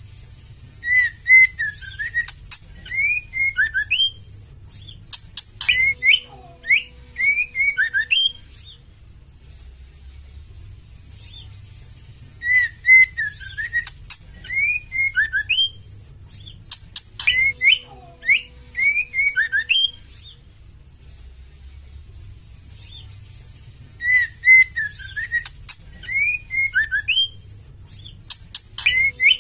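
Female white-rumped shama calling: bursts of rapid chirps and whistled, sliding notes a few seconds long with short pauses between, the same sequence coming round again about every 11 to 12 seconds. It is the call used as a lure to provoke male shamas into singing.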